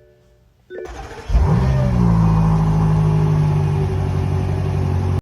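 Car engine starting: a short crank about a second in, then it catches with a brief rise in revs and settles into a steady idle, cutting off abruptly at the end.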